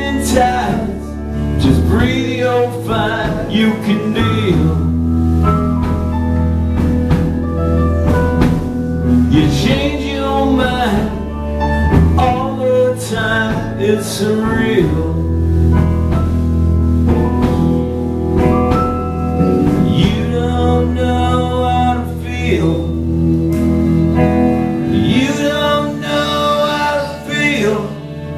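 Live rock band playing: electric guitars, electric bass, violin and drums, with sustained bass notes under a wavering melody line.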